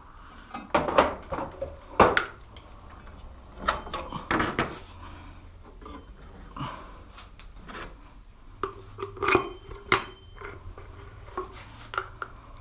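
Metal hand tools and bike parts clinking and knocking in irregular bursts, with the sharpest knocks about two seconds in and again near the ninth and tenth seconds.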